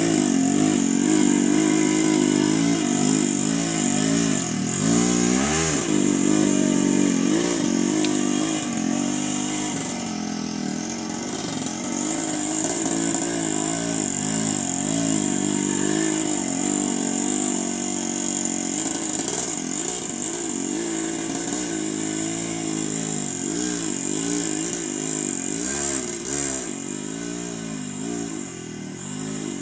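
Motorcycle engine running, its pitch rising and falling repeatedly as the throttle is worked, with a steady high hiss behind it.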